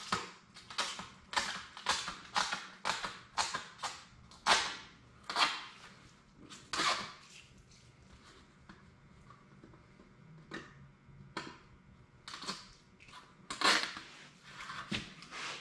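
Plastic protective film being peeled off a sheet-metal fender panel by hand, crackling and tearing in quick strokes, about two a second, then fewer, with a few louder rips near the end.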